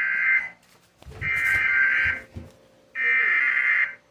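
Emergency Alert System SAME header: three bursts of buzzing digital data tones, each about a second long, which encode the alert (here a special marine warning) ahead of the attention tone. A few low thumps sound under the second burst.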